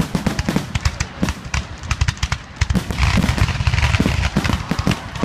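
Fireworks finale: a rapid barrage of aerial shell bursts and crackling, with many overlapping bangs. The barrage grows denser and louder about three seconds in.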